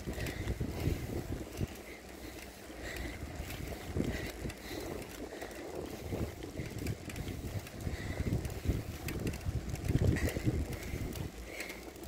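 Wind buffeting the microphone and the rumble of a bicycle rolling on a concrete road, with faint short high chirps every second or so.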